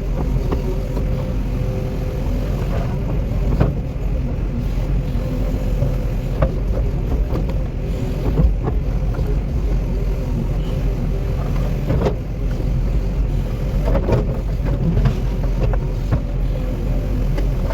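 Cat 316E excavator's diesel engine running steadily at working speed, with occasional sharp knocks and clanks from the machine at work.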